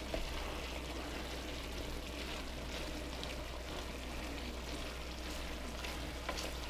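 Chicken pieces cooking in a stir-fry pan, a steady hiss of sizzling and simmering.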